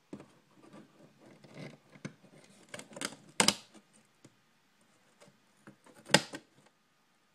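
Handling noise: a camera brushing, scraping and knocking against the diorama's walls as it is moved through them, with two sharper knocks, one about three and a half seconds in and one about six seconds in.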